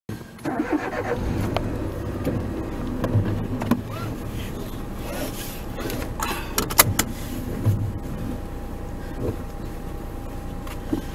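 Rustling and handling noises inside a car as a seat belt is pulled across and fastened, with a few sharp clicks near the middle, over a steady low hum.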